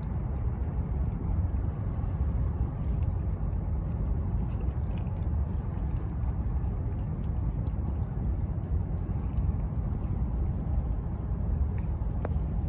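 Low, steady rumble of the Japan Coast Guard patrol vessel Fuso (PLH 21) under way across the harbour, with wind buffeting the microphone.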